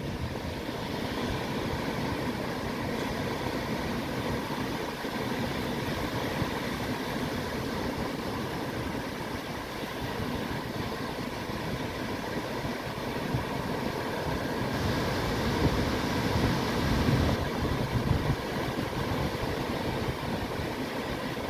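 Ocean surf breaking and washing onto a sandy beach: a steady wash of noise that swells a little louder about three quarters of the way through.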